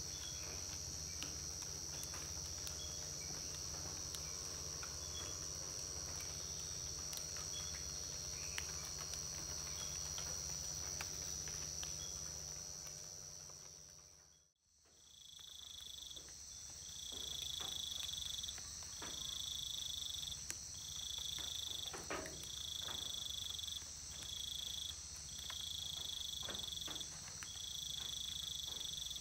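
Amazon rainforest insect chorus: a steady high-pitched drone throughout. The sound drops out briefly about halfway. After that a second insect call joins, pulsing about once a second.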